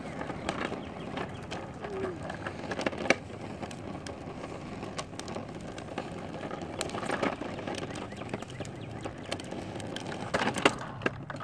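Child's tricycle rolling over asphalt and concrete pavement: a steady gritty rumble from the small wheels, broken by scattered clicks and knocks.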